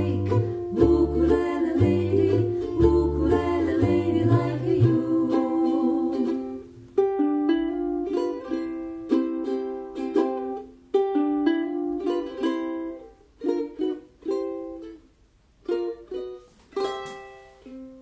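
Ukulele and double bass playing while two women sing in harmony. About seven seconds in the bass drops out, leaving ukulele chords struck in short groups separated by pauses.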